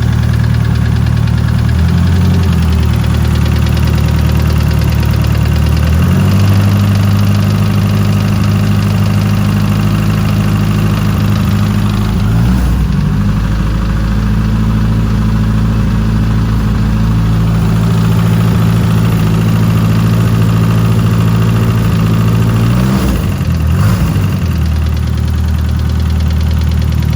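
Sandrail's turbocharged 2.3 L Ford four-cylinder engine running at idle, its speed shifting several times. It has a light tick that the owner hopes is a lifter tick, heard mostly at idle or when coming down to idle.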